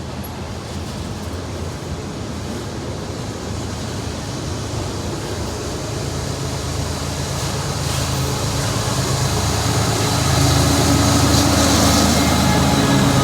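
CSX freight train rolling by, its noise growing steadily louder, with a diesel locomotive's low engine drone rising in the second half.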